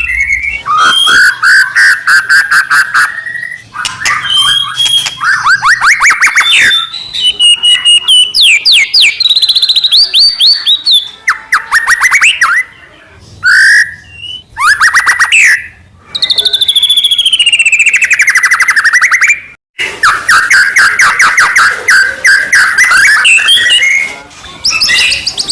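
White-rumped shama (murai batu) singing loudly: fast trills and rapidly repeated notes alternating with whistled, gliding phrases, broken by a few short pauses. This is the rapid, varied full song used as a provoking 'pancingan' call for other shamas.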